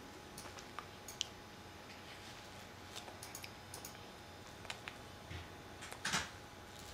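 Faint, irregular light clicks and taps in a quiet room, with one louder brief rustling knock about six seconds in.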